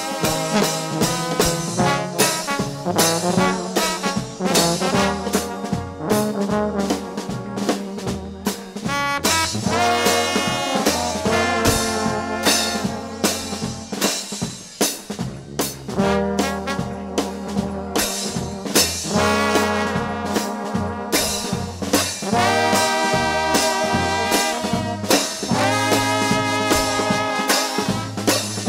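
Trombone shout band playing gospel: many trombones in harmony, swelling several times into rising slides, over a bass line and drums keeping a steady beat.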